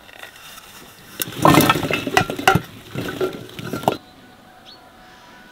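Sliced red onions tipped from an enamel plate into an enamel bowl: a rushing slide of onion pieces with clinks of the metal dishes, for about three seconds. It stops abruptly, leaving faint bird chirps.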